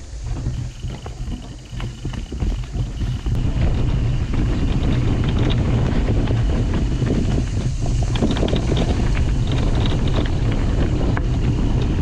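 Wind buffeting the microphone of a camera riding fast on a mountain bike down a leaf-covered dirt trail, mixed with the crackle and rattle of tyres on the ground. The rush builds and holds steady from about three and a half seconds in as speed picks up.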